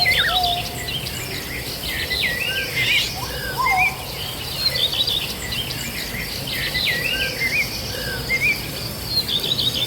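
Several birds chirping and calling, a dense run of short, quick, rising and falling chirps with a few lower whistled notes, over a steady low background rumble.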